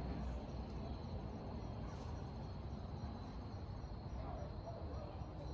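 Crickets chirping as a steady, unbroken high trill, over a low steady rumble.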